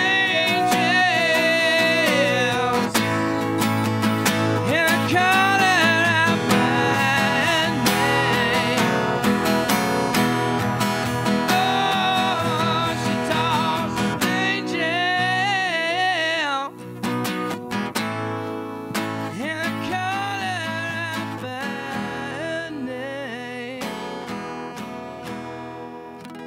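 A song with strummed acoustic guitar and a man singing, fading out toward the end.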